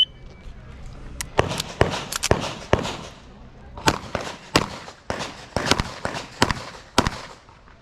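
Handgun shots being fired rapidly in a practical-shooting course of fire: about a dozen sharp reports from about a second in, some in quick pairs and some with short pauses between, each with a brief echo.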